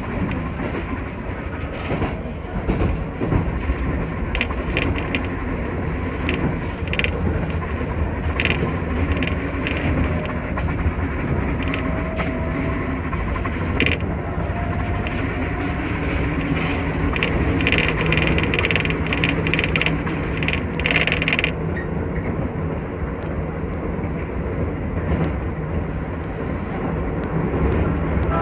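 Keisei 3000 series electric train running at speed, heard from inside at the front behind the driver's cab: a steady low rumble of wheels on rail, with a run of sharp rattling clicks through the middle stretch.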